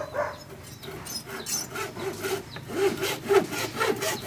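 Hacksaw cutting a thin sheet of 3 mm caobilla plywood in quick, rhythmic back-and-forth strokes, the rasping getting louder about a second in.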